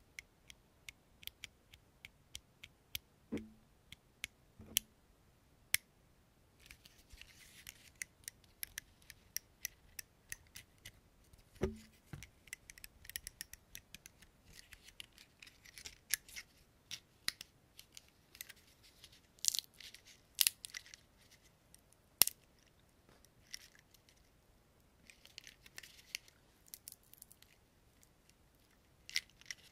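Close-miked fingers tapping, flicking and scratching small objects on a desk. A run of sharp crisp clicks comes first, then bouts of dry scratching and rustling with more clicks mixed in, and a few soft low thumps.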